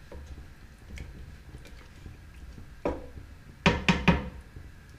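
Wooden spoon knocked against the rim of a stainless steel cooking pot: one knock about three seconds in, then three quick, louder knocks, each with a short ring from the pot.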